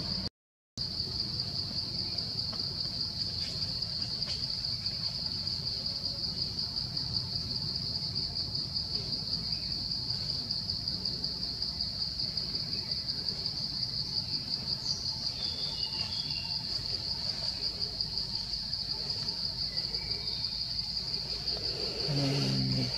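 Steady chorus of insects in the forest, a continuous high, fast-fluttering trill. The sound cuts out for half a second just after the start.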